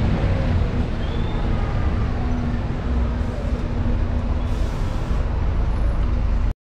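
Open-top double-decker tour bus running along a city street, heard from its upper deck: a steady engine rumble with a low hum, mixed with road and traffic noise. The sound cuts off abruptly near the end.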